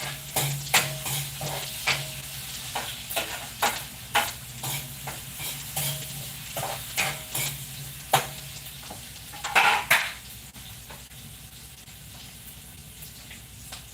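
A cooking utensil stirring and clinking against a pan, with irregular sharp clinks about once or twice a second over food sizzling as it fries. The clinks end with a louder flurry about ten seconds in, leaving only the quieter steady sizzle.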